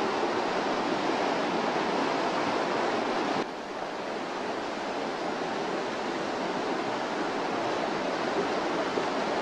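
Steady rushing of a fast-flowing stream, dropping abruptly a little in level about three and a half seconds in.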